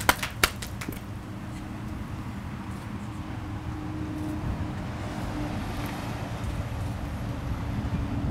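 The last scattered claps of applause die away within the first second, leaving a steady low outdoor rumble that grows slightly louder toward the end.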